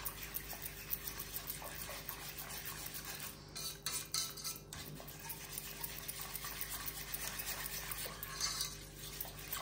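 Small wire whisk beating a thin liquid of apple molasses and water in a stainless steel pot, with steady sloshing and the metal wires ticking and scraping against the pot.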